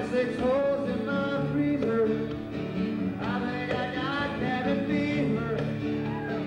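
Live country-rock band performance: a male lead vocal sung into a microphone over guitar and band accompaniment.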